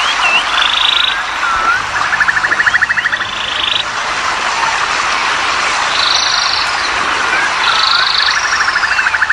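Frogs calling: short rattling trills of rapid pulses, each about a second long, coming in turns at a higher and a lower pitch with brief chirping notes between them, over a dense steady hiss of background chorus.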